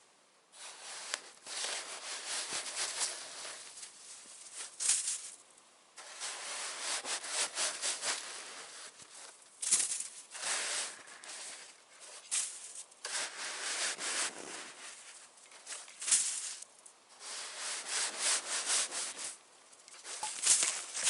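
Shovel digging into and scraping through deep snow, one stroke after another, each scrape lasting a second or two.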